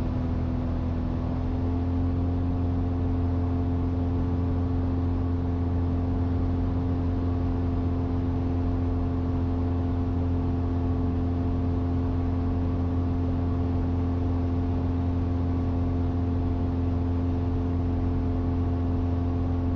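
Twin-engine piston airplane's engines and propellers droning steadily in flight, holding one even pitch.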